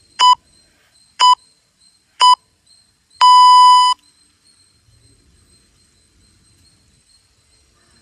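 Interval timer's countdown beeps: three short electronic beeps a second apart, then one longer beep at the same pitch, marking the end of a timed interval as the countdown reaches zero.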